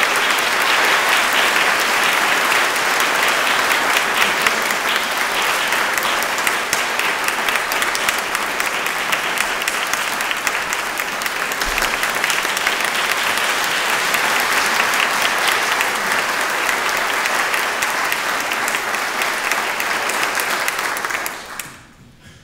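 Audience applauding: a long, steady round of clapping that dies away quickly near the end.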